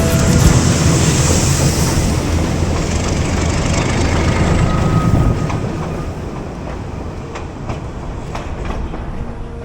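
Narrow-gauge train of the White Pass & Yukon Route Railway rolling along, a steady rumble of the cars with wheels clicking over the rail joints, easing somewhat in level a little past halfway.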